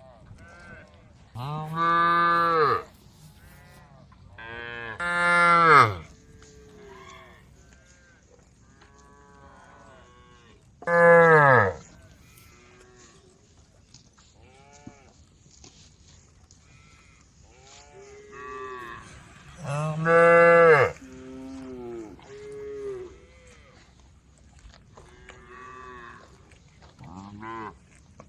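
Several cows mooing: four loud, long moos several seconds apart, with fainter moos from other cows in between.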